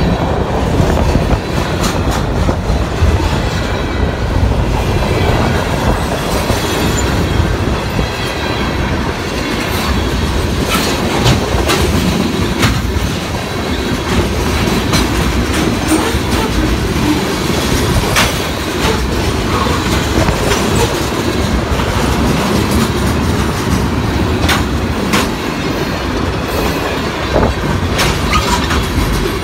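Freight cars rolling past close by, covered hoppers and then tank cars: a steady rumble of steel wheels on rail, broken by sharp clacks as the wheels cross rail joints.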